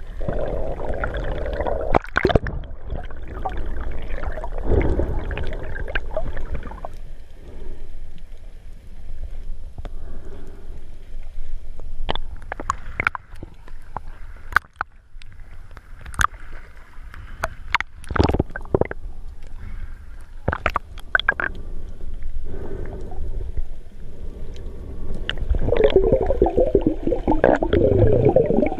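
Muffled underwater sound heard through a GoPro's waterproof housing: water gurgling and sloshing over a low rumble, with scattered sharp clicks. The bubbling swells up loudest near the end.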